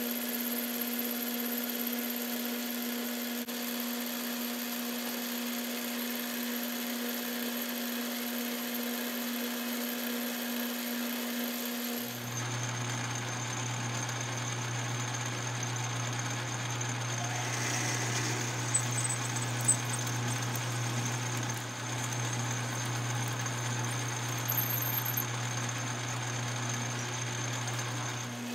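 A small metal lathe runs steadily with its spindle turning aluminium hex stock, first being faced and then drilled from the tailstock with a twist drill. About twelve seconds in, the machine's steady hum switches abruptly to a lower pitch. A couple of faint ticks come a few seconds later.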